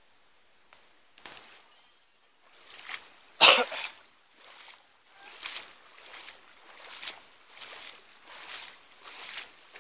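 Footsteps wading through shallow floodwater, a sloshing swish about every three-quarters of a second, with a single loud burst about three and a half seconds in.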